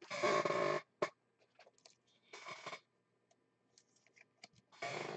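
Glossy holographic football trading cards sliding against each other as a stack is flipped through by hand: three short bursts of sliding noise, the first and loudest at the start, and a sharp click about a second in.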